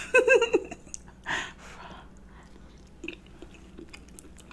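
A person eating a mouthful of chicken pot pie: a brief bit of voice at the start, a breathy exhale about a second and a half in, then faint wet chewing clicks.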